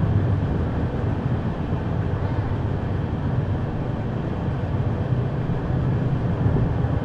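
Steady running rumble and wheel-on-rail noise of a moving passenger express train, heard from on board.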